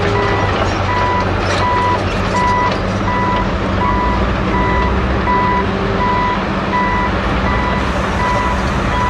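Rigid-frame off-highway dump truck reversing: its backup alarm beeps steadily, about three beeps every two seconds, over the constant note of its diesel engine.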